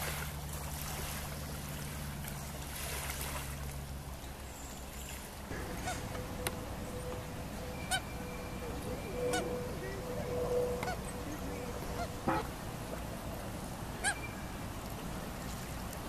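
Geese honking: a series of short, separate honks about one to two seconds apart, starting about five seconds in. A steady low hum runs under the first five seconds.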